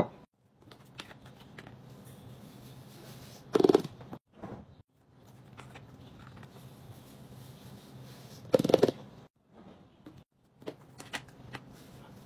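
OxiClean stain-remover powder pouring into a glass canister: a soft granular hiss, with two short louder rushes, about a third and about two-thirds of the way in.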